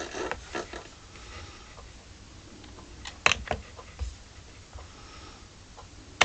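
Quiet room tone broken by scattered small clicks and knocks, with sharper clicks about three seconds in and again at the very end.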